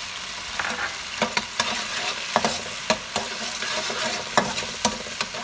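Garlic, red chili and sauces sizzling in hot oil in a frying pan, with a spatula stirring and repeatedly knocking and scraping against the pan.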